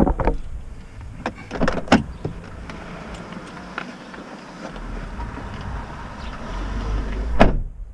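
A few short clicks and knocks inside a parked car, then a steady low rumble of the car that grows a little louder over the last few seconds.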